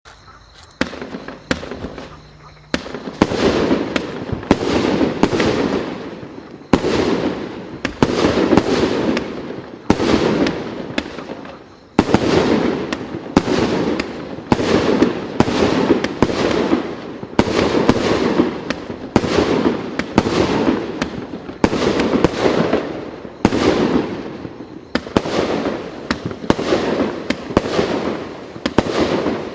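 Consumer fireworks battery (multi-shot cake) firing shot after shot, about one a second, each sharp report trailing off in a decaying burst. A few sparse pops in the first three seconds, then a steady run of shots.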